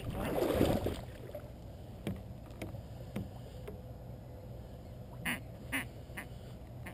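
Short duck quacks, scattered, with two louder quacks about five and a half seconds in. A burst of rushing noise fills the first second.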